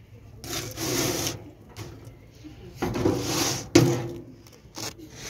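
A long flat spatula scraping over the steel baking plate of a homemade bread oven as round loaves are shifted: two scrapes about two seconds apart, a sharp knock at the end of the second, and a few light clicks near the end. A low steady hum runs underneath.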